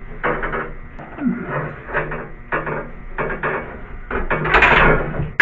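Irregular clicks, knocks and rattles of antenna hardware being handled and pushed into place against a door, with a louder scraping rush near the end.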